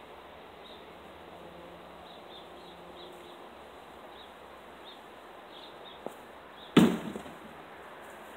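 A thrown object strikes a target once, with one sharp, loud thud that dies away quickly, preceded by a faint click.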